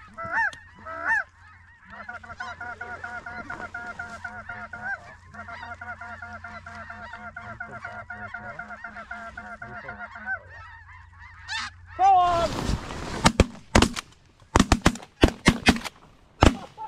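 Snow goose calls: a few loud yelps, then a rapid, steady chatter of calls for about eight seconds. About twelve seconds in, a rush of noise, then a volley of about eight shotgun blasts in quick succession over four seconds as several hunters fire on the flock.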